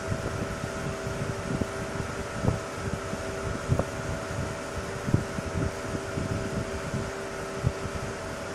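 Steady machinery hum holding a few fixed pitches, under irregular low gusts of wind buffeting the microphone.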